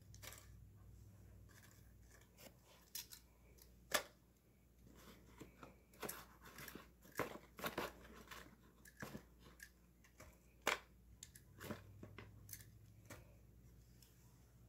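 A hand-held grabber tool clicking as it grips, lifts and tips a small foil-wrapped toy trash bin over a paper bag, with papery rustling. The clicks and short rustles come irregularly, the sharpest about 4 and 11 seconds in.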